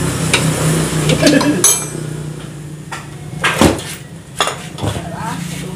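Metal clanking and knocking as a Honda Astrea Grand engine is lowered out of the motorcycle's steel frame, with the engine and loose parts knocking against the frame. There are several knocks, the loudest about three and a half seconds in, over a steady low hum.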